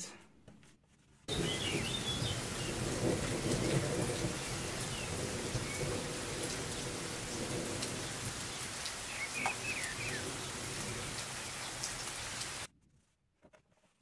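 Steady rain falling, with a low rumble of thunder under it. It starts abruptly about a second in and cuts off abruptly near the end.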